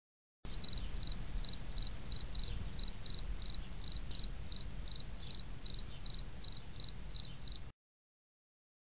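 Insect chirping in an even rhythm of about three high chirps a second, over a low rumble; it starts suddenly and cuts off sharply near the end.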